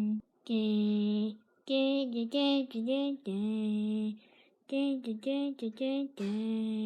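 A high voice singing a tune with no instruments: short phrases, some notes held for most of a second, with brief pauses between them.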